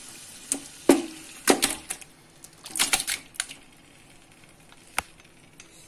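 Marinated chicken being tipped and scraped from a bowl into a metal pot of tomato masala: irregular knocks and clinks of the bowl and spoon against the pot, in a few quick clusters and a last single sharp click, over a faint sizzle.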